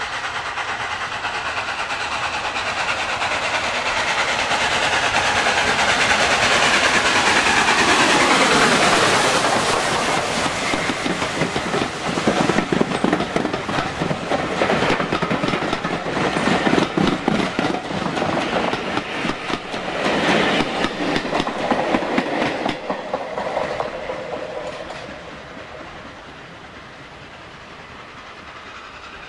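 A train passing close by. It grows louder, its sound drops in pitch as it goes past, then the carriage wheels click rapidly over the rail joints for several seconds before fading away near the end.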